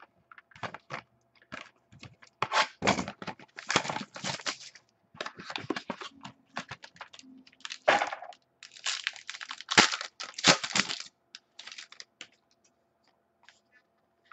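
A trading-card pack's wrapper being torn open and crinkled, then cards handled, giving clusters of crackling rustles and small clicks, busiest in two spells of a few seconds each.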